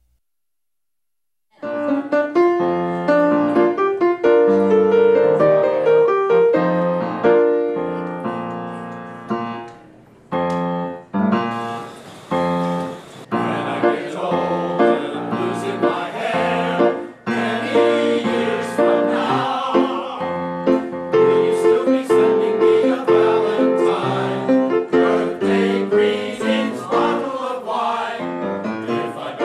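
Piano playing chords after a brief silence at the start, joined a little before halfway by a choir singing with the piano.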